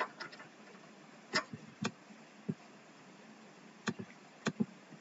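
Computer mouse clicking while an image is dragged into place on screen: about seven short, sharp clicks at irregular intervals, some in quick pairs.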